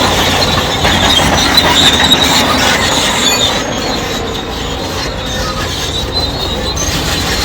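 Crawler bulldozer at work, its steel tracks squealing and clanking over its running engine; the high squeal fades after about three and a half seconds.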